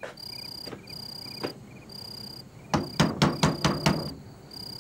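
Knocking on a wooden door: a few single knocks, then a loud quick run of knocks about three seconds in. Crickets chirp steadily behind it.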